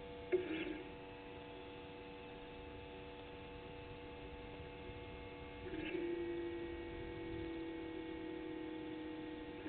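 Steady electrical mains hum made of several fixed tones. A short, louder whirr comes in about a third of a second in, and a longer steady whirring tone runs for about four seconds from just before the six-second mark.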